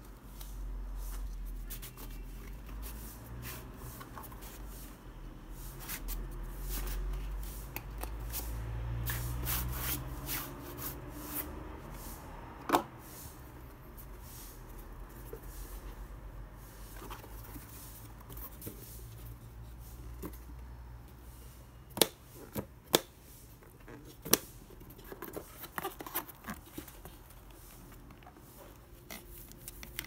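Rigid cardboard gift box and its printed paper sleeve handled by hand: paper and card rubbing and sliding. There is a sharp click near the middle and a cluster of sharp clicks and taps in the last third as the box is handled and its lid opened.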